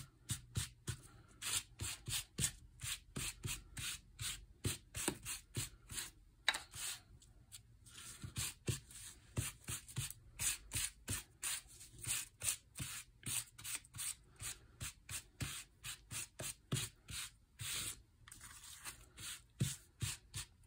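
A Distress Ink pad rubbed in quick, light strokes across crumpled brown kraft paper, a scratchy brushing about two strokes a second with a short pause partway through. The light touch inks only the raised wrinkles to give a faux leather look.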